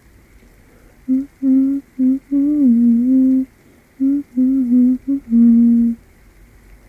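A person humming a slow, made-up lullaby-like tune in short held phrases. The humming starts about a second in and stops about six seconds in.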